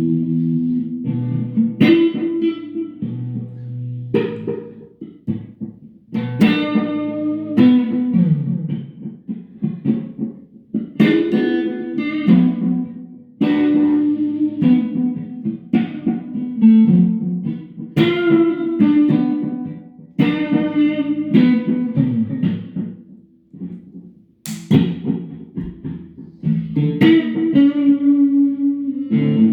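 Electric guitar played through a Boss Katana amp fed into a Fender Acoustasonic amp: clean, bluesy chords and single-note phrases in bursts, with short pauses between them.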